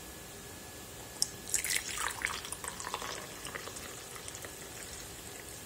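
Coffee being poured from a carafe into a ceramic mug: a light clink about a second in, then the splashing trickle of the stream filling the mug.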